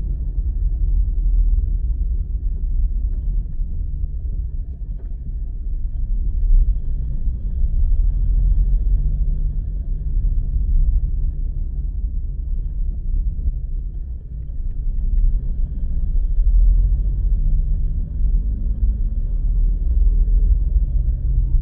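Car driving on a road: a steady low rumble of engine and tyres that swells and eases a little over time.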